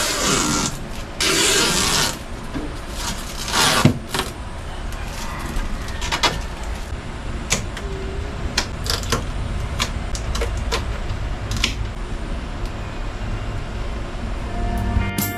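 Household cleaning and handling sounds: loud rubbing, scrubbing noises in the first four seconds, then scattered light clicks and knocks over a low steady hum. Guitar music comes in at the very end.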